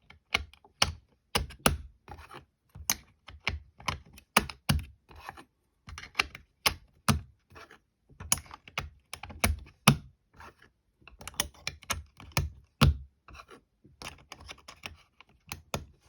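Irregular sharp metal clicks and clacks, several a second, from an old Milner's lever safe lock being handled and worked by hand.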